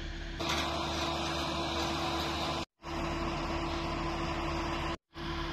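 Steady drone of heavy construction machinery running, with a constant low hum. It drops out twice into a moment of dead silence.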